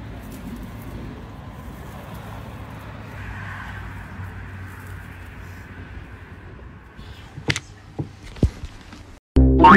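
Steady low background hum, with a few sharp clicks about seven to eight and a half seconds in, then a sudden loud sound starting just before the end.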